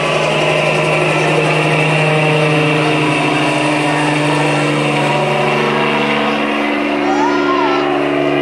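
Several people droning and buzzing with their voices at once, imitating engines. Each holds a long, steady note at its own pitch, and one voice swoops up and down near the end.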